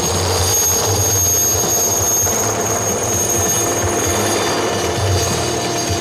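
Helicopter flying low across open ground: a steady high whine over a low rumble that swells and fades.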